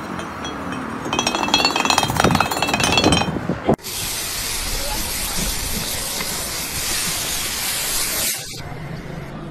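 High-pitched clinking and squealing for the first few seconds, then a pressure washer's jet spraying with a steady loud hiss onto a cast-iron manhole cover, blasting off the rust, for about four and a half seconds before cutting off suddenly.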